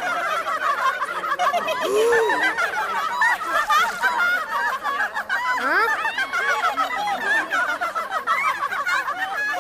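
A crowd of cartoon chickens clucking and cackling all at once, many short overlapping calls.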